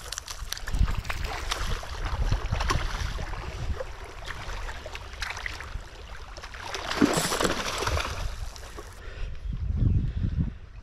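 Wind rumbling and buffeting on a small action-camera microphone, with faint crackles, over calm, small waves washing onto the sand; a stronger gust swells about seven seconds in.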